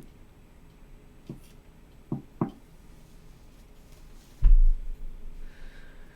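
Three light taps, then one dull, heavy thump with a deep low end about four and a half seconds in, over a quiet room.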